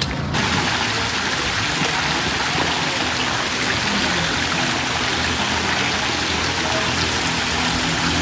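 Steady rushing of water from a stream, an even hiss without breaks.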